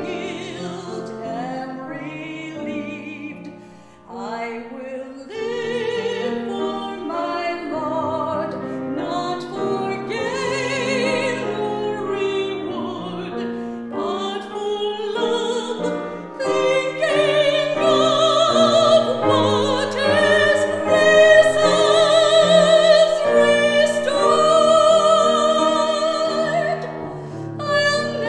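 A woman singing a solo with a strong vibrato over an instrumental accompaniment, in a classical, hymn-like style. She pauses briefly about four seconds in and sings louder, with long held notes, in the second half.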